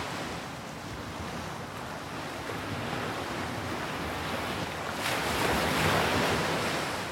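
Sea waves washing in a steady rush that swells louder about five seconds in.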